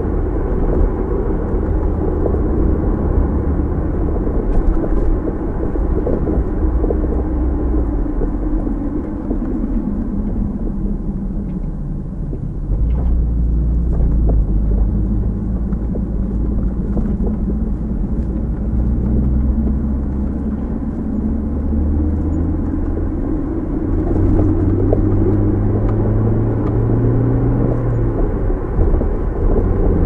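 A car driving, its engine and road noise making a steady low rumble. The engine note shifts to a new pitch a few times, around the middle and again near the end.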